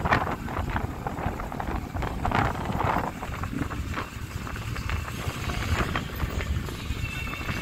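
Wind rumbling on the microphone over outdoor street noise, with vehicle sounds mixed in. The noise is louder in the first three seconds.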